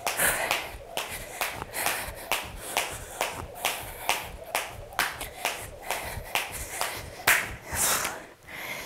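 Jump rope slapping the floor mat on each turn, in a steady rhythm of about two to three slaps a second, stopping near the end.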